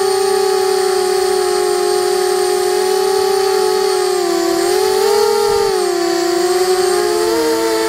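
QAV250 quadcopter's four brushless motors and DAL 5040 propellers whining steadily, heard close from the onboard camera. The pitch dips and rises about halfway through and again near the end as the throttle changes.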